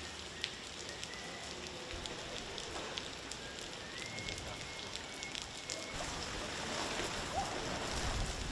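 Heavy rain falling on a flooded stone square: a steady hiss of rain on standing water, with scattered ticks of individual drops.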